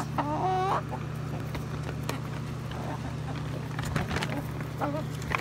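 Buff Orpington chickens feeding around a bucket feeder: a short wavering call just after the start, a brief call near the end, and faint scattered pecking clicks, over a steady low hum.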